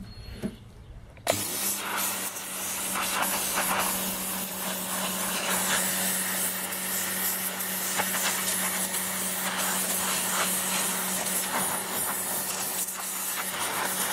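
Dedra 1900W electric pressure washer kicking on suddenly about a second in as the trigger is pulled, then running steadily: a constant motor hum under the loud hiss of the high-pressure water jet spraying onto a dirty metal part.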